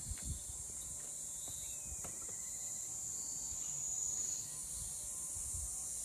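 Steady high-pitched insect buzzing from the surrounding greenery, with one louder trill that stops about four and a half seconds in.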